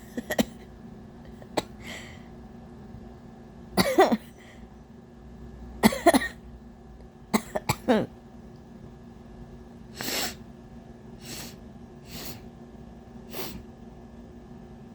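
A woman coughing repeatedly, singly and in quick runs, over about eight seconds, from irritation in her nose after putting spices up it. The coughs are followed by four softer, breathier bursts about a second apart.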